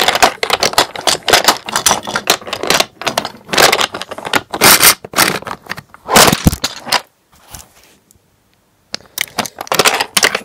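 Toy trains and track pieces being handled and pushed about on a toy railway layout. There is quick, irregular clattering, scraping and clicking, with a pause of about two seconds a little after the middle.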